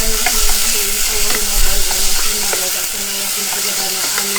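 Beef strips sizzling in oil in a pan over high heat, with a spatula clicking and scraping against the pan as they are stirred.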